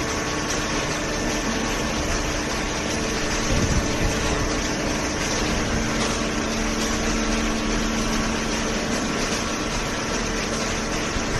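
Horizontal hydraulic paper baler running, its motor and hydraulic pump giving a steady mechanical hum. A second, lower tone joins for a few seconds in the middle.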